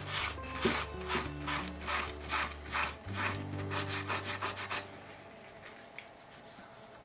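A cloth rubbing in quick repeated strokes over a painted model wall, wiping off and streaking excess acrylic paint; the strokes stop about five seconds in.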